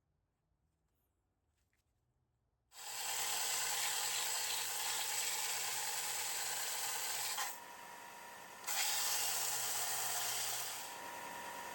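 Near silence for the first few seconds, then a power grinder's abrasive wheel cutting into steel with a loud, steady hiss. It lets up for about a second midway, leaving the motor's whine, then bites in again, and the contact eases near the end.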